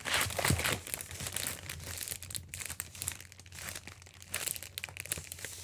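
Clear plastic bag crinkling and crackling in irregular bursts as paper journal pages are slid into it and the bag is handled: a staticky plastic rustle.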